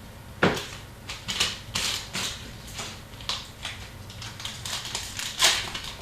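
Hockey trading cards being handled and sorted by hand: an irregular run of short clicks, snaps and rustles as cards are flipped and laid down, the sharpest about half a second in and near the end.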